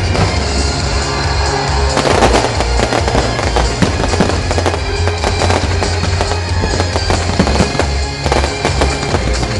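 Fireworks display: dense crackling and popping from sparking fountains and bursting shells, thickening about two seconds in. Music with a heavy bass plays underneath.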